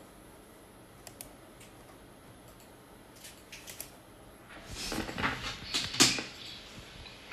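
A few faint clicks, then rustling, scraping and a knock, loudest about six seconds in: handling noise from a phone being moved about while it records.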